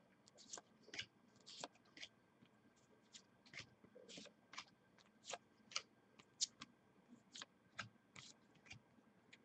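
Faint, irregular clicks and snaps of football trading cards being handled and sorted, roughly two a second.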